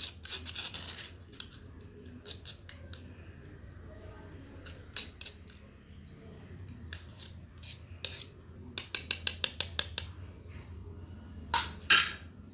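Toothbrush handled around a small bowl and rubbed on skin: scattered sharp clicks and short scrapes, with a quick run of about five clicks a second around two-thirds of the way through.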